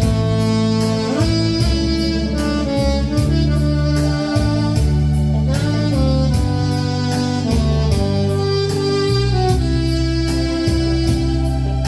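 1965 Buescher 400 saxophone playing a slow, held melody line over a backing track with a steady beat.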